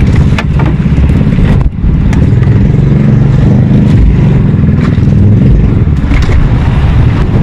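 Small fishing boat's engine running steadily at a constant speed, a loud, low, even drone.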